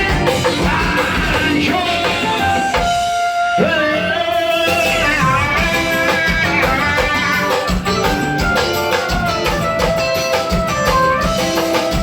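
Live piseiro band music playing an instrumental passage: a melody over a steady dance beat, with the beat dropping out for about half a second around three seconds in before it comes back.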